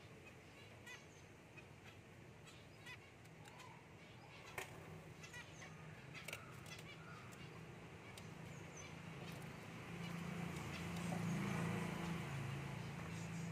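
Zebra finches giving short, nasal honking calls, now and then, with a few sharp taps as they peck at seed on newspaper. A low hum swells up in the second half.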